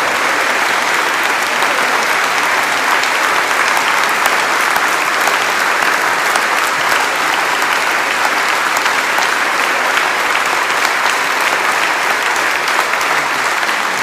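Audience applauding, a dense and steady clapping from many people that holds at the same level without a break.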